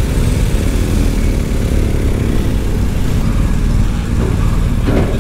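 Motorcycle engines running steadily at low speed, a continuous low rumble.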